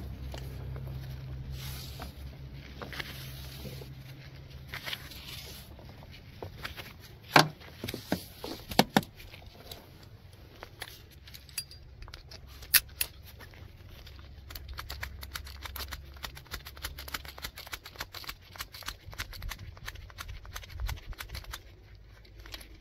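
Gloved hands handling a red rope and a magnet-fishing magnet's steel eyebolt: rustling rope and a run of small metal clicks, with a few sharp louder clicks, over a low steady hum.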